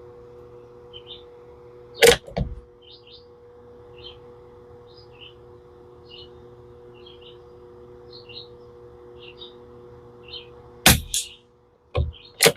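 Two shots from a Tikka T1x .22 LR bolt-action rifle, about nine seconds apart, followed near the end by a couple of sharp metallic clicks. Birds chirp throughout over a faint steady hum.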